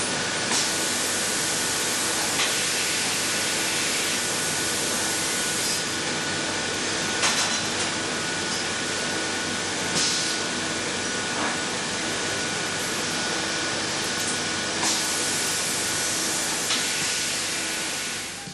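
A steady, even hiss with a faint high tone running through it and a few faint clicks scattered across it.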